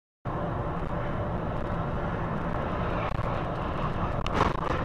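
Steady road and engine rumble of a car driving on a highway, heard from inside the vehicle, starting abruptly about a quarter of a second in. A brief, louder, harsher noise comes near the end.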